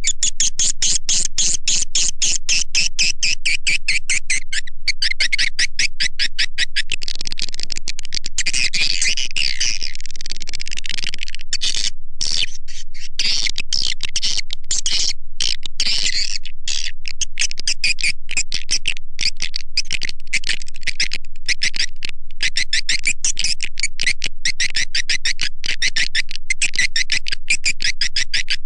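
Recorded swiftlet call, a dense, unbroken stream of rapid, high twittering chirps. It is a lure call played at swiftlet houses to draw swiftlets in to nest.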